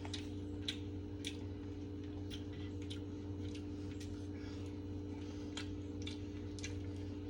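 Quiet eating: sparse faint clicks and ticks of chewing and cutlery over a steady low electrical hum.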